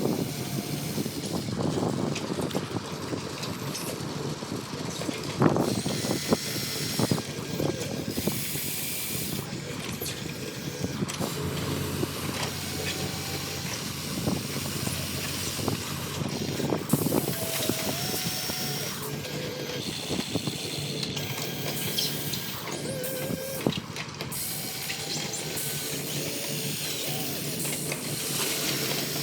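Radio-controlled model excavator at work: short electric motor whines over a steady hiss, with a few scattered knocks.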